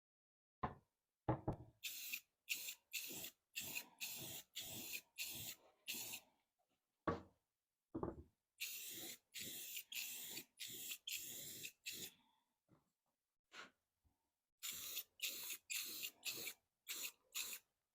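Black paint sprayed in short, quick hissing bursts, about two a second, in three runs with short pauses between them. A light coat is going onto a painted metal cabinet. A few faint thumps fall among the bursts.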